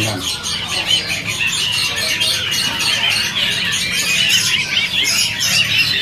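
Many caged songbirds chirping and calling over one another in a busy bird market, a dense, unbroken chatter of short high notes, over a steady low hum.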